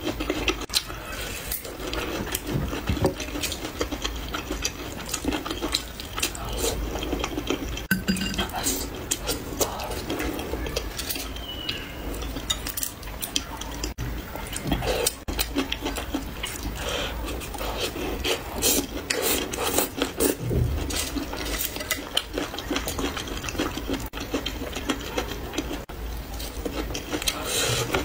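Close-miked mukbang eating sounds: chewing and crunching of sauce-coated skewered vegetables and fish cakes, with wet mouth sounds and many sharp clicks of bamboo skewers knocking together and against the foil tray.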